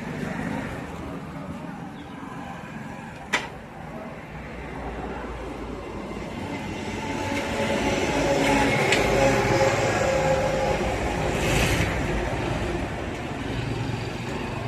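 Vehicle traffic going by: a noisy rumble that swells over several seconds and then eases off, with one sharp click about three seconds in.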